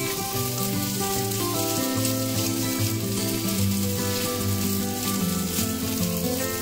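Potato gnocchi sizzling steadily as they sear in hot oil in a skillet, with background music of held, changing chords playing over it.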